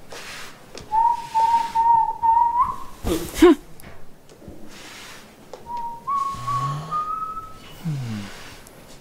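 A person whistling: one long held note, then after a pause a short phrase of notes stepping upward. A brief loud sound with falling pitch comes about three seconds in, between the two phrases.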